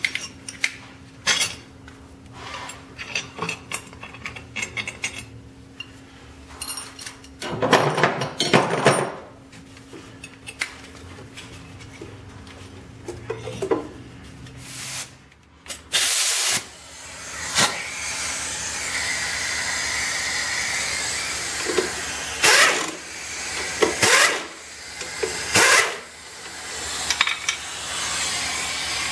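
Hand tools clicking and clanking on metal, then, from about halfway through, a compressed-air blow gun hissing steadily, with several sharper blasts near the end.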